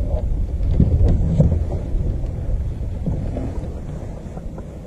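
Low rumbling wind buffeting on the camera's microphone, fading toward the end.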